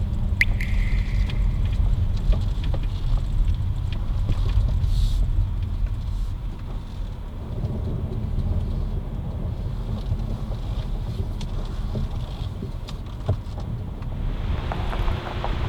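A car driving, its steady low road and engine rumble heard from inside, with a few small clicks and a rise in hiss near the end.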